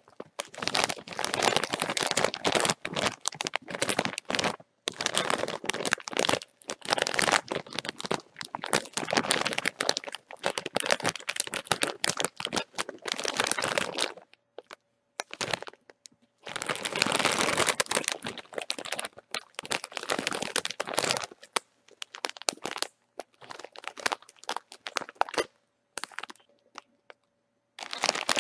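Bag of chips being crinkled and crumpled in long runs of dense crackling, broken by a short pause and a quieter spell about halfway. The crackles turn sparse and scattered through the last third.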